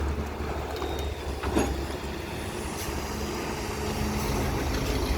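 Diesel engine of a CAT320 long-reach excavator running steadily, with a brief metallic knock about one and a half seconds in.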